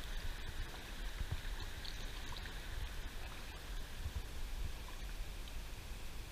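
Kayak paddle dipping and pulling through calm water, with steady watery splashing and dripping. A gusty low rumble of wind on the microphone runs underneath.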